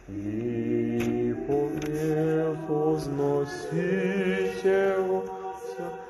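Slow Orthodox liturgical chant in a male voice: long held notes that step to a new pitch every second or so, with no spoken words.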